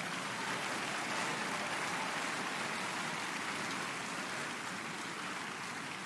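Steady rainfall, an even hiss of rain coming down without a break, easing off slightly near the end.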